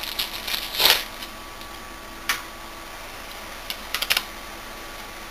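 Handling clicks of a compact camcorder as its battery is put in: a short rustle and a sharp plastic click about a second in, another click a little past two seconds, and a quick cluster of small clicks near the end.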